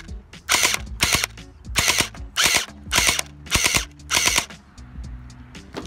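Gel blaster firing water-gel beads: about seven short shots, roughly two a second, stopping about four and a half seconds in.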